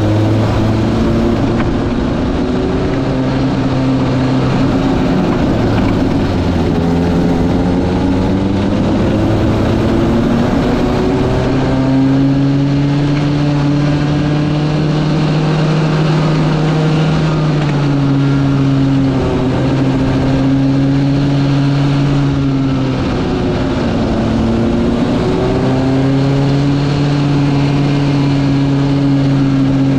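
Small go-kart engine running at speed, its pitch holding steady, then dipping and climbing again several times as the kart lifts off and accelerates.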